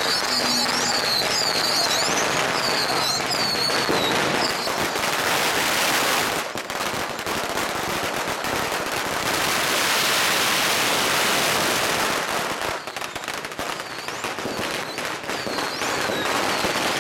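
Strings of firecrackers going off nonstop in a dense, rapid crackle, with fireworks bangs mixed in. High, short whistling squeals sound over the crackle in the first few seconds.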